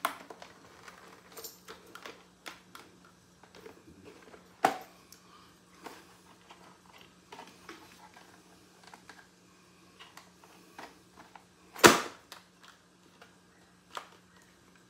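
Irregular plastic clicks, taps and rubbing as an HJC i90 modular motorcycle helmet is handled and pulled down over the head. A smaller knock comes near five seconds in and a sharp knock, the loudest, about twelve seconds in. A faint steady hum lies underneath.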